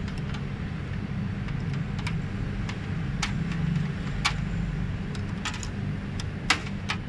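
Metal wire spiral coil being fitted into a vending machine tray slot: a handful of separate sharp clicks as the coil knocks against the plastic tray and its holder, over a steady low machine hum.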